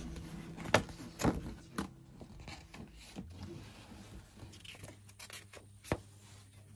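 Paper handling: the pages of a book and a magazine being turned and handled, with a few sharp knocks and scrapes over a faint low hum.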